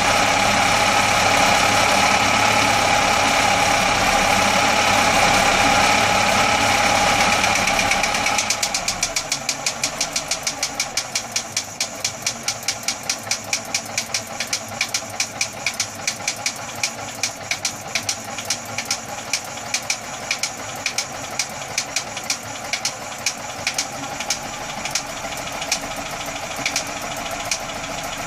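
Universal Atomic 4 four-cylinder gasoline marine inboard engine running steadily. About eight seconds in it drops to a quieter idle with a regular sharp popping, several pops a second: the popping noise the owner is showing.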